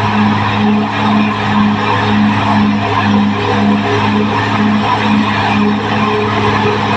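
Caterpillar D6R XL bulldozer's diesel engine running steadily under work, with a constant hum that pulses about twice a second over the machine's noise.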